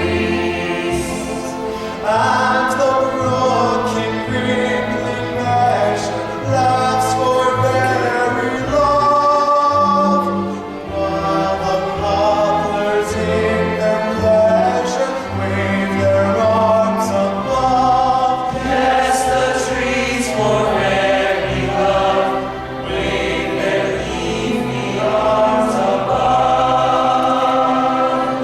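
A chorus of many voices singing an operetta ensemble number with accompaniment, several parts at once in sustained phrases.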